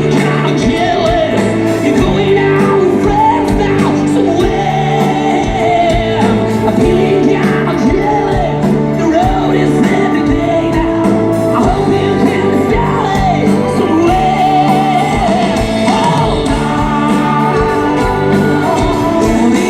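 Live band music with a lead singer over a steady drum beat and sustained bass notes.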